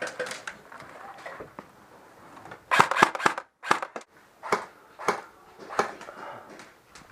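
Airsoft guns firing: a quick burst of snapping shots about three seconds in, then single shots spaced out after it.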